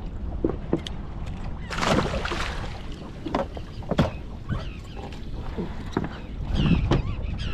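Wind buffeting the microphone over water lapping at a small boat, with scattered knocks and thumps on the boat as a freshly landed striped bass lies on the deck.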